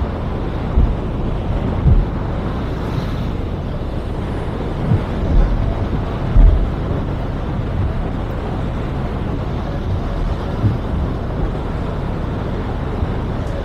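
Steady rushing outdoor noise of wind and surf on a beach, with wind buffeting the microphone in several low thumps, the strongest about six seconds in.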